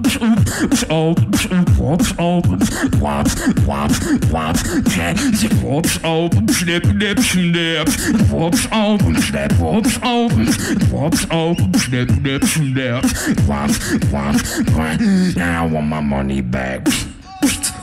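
Solo beatboxing into a handheld microphone: sharp snare and hi-hat clicks in a steady beat over a hummed bass line and pitched vocal sounds. The sound dips briefly near the end.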